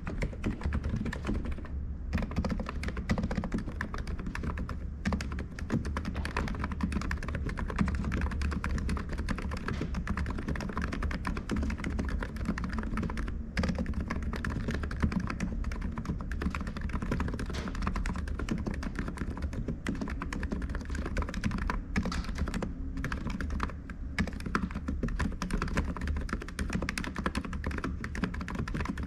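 Continuous typing on an ABKO KN30BT keyboard: a fast, steady run of key clicks with a few brief pauses.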